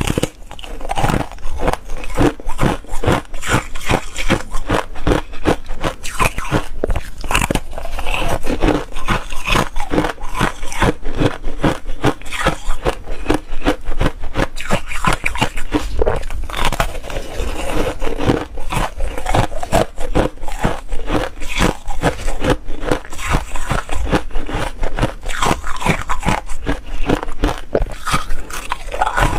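Foam ice being bitten and chewed: a dense, continuous run of brittle crunches and crackles, several each second.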